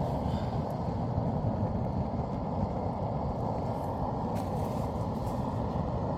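Small wood-burning twig stove burning hard, giving a steady rushing noise of flame.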